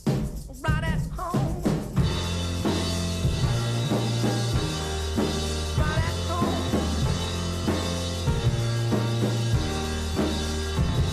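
Background music with drums: a sparse beat and a short wavering melodic line, then the full band comes in about two seconds in with a steady beat and sustained bass.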